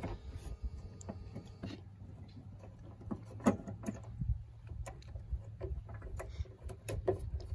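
Scattered small plastic clicks and knocks from a headlight low-beam bulb and its wiring connector being handled and worked out of the back of the headlight housing, the sharpest about three and a half seconds in, over a steady low hum.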